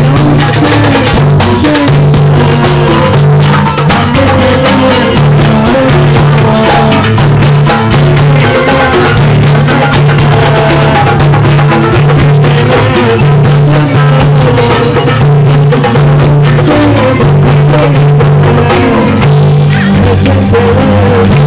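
Loud, continuous music with drums and shaken percussion over a steady low bass line and a melody.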